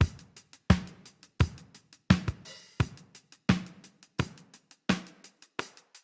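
Recorded drum kit playing a steady groove: a kick or snare hit about every 0.7 seconds with lighter hi-hat ticks between them, and a brief cymbal wash about two and a half seconds in.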